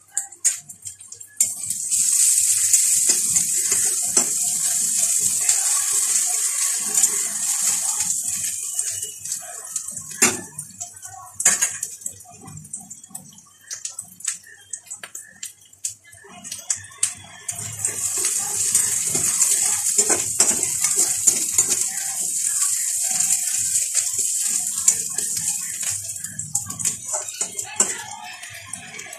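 Grated onion and whole spices sizzling in hot oil in a steel kadhai, a steady high hiss that comes in two long stretches with scattered pops and crackles. Near the end a spatula stirs the frying onion around the pan.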